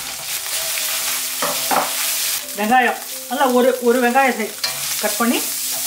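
Ginger-garlic paste, green chillies and curry leaves sizzling in hot oil in a wok while a bamboo spatula stirs them, with chopped onion tipped into the pan late on. A person's voice sounds in a few short stretches in the middle.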